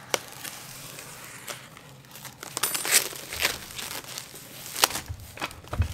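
Plastic wrap crinkling and tearing as hands pull it off wrapped steel parts, with several sharp crackles.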